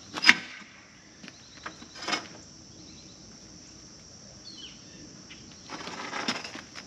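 Steady high-pitched chirring of insects such as crickets. A sharp knock comes just after the start, the loudest sound, with a smaller knock about two seconds in and a rustling, shuffling stretch near the end.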